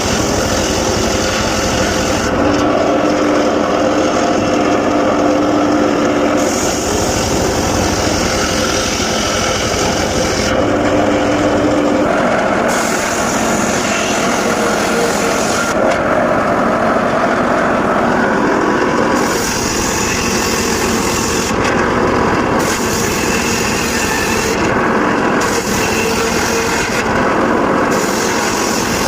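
Circular saw running and cutting mahogany wood, a loud continuous machine noise whose higher part comes and goes every few seconds.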